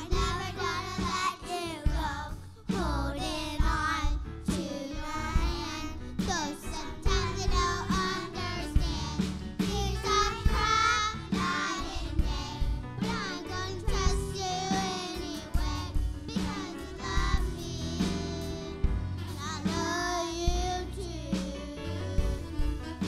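Children's choir singing a song together over an instrumental accompaniment with a steady beat.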